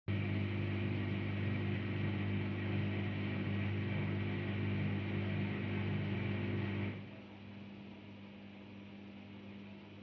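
Daewoo DWD-FT1013 front-loading washing machine taking in water for the rinse: water rushes through the inlet valve with a steady hum, then the fill shuts off suddenly about seven seconds in, leaving only a faint hum.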